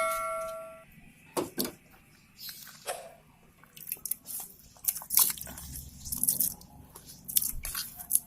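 Kitchen sounds as a pot is readied for boiling: a metal ring fading out in the first second, then scattered clinks and knocks of utensils and cookware with some water sounds.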